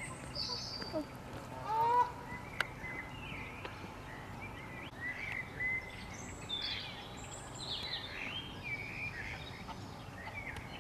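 Birds around a park lake: a goose gives a short honk about two seconds in, then small songbirds keep up a run of quick high chirps and twitters, busiest in the second half.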